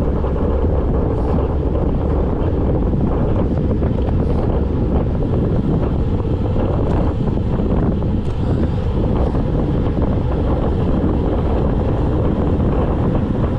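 Wind rushing steadily over the microphone of a camera on a road bike riding downhill at speed, loudest in the low range.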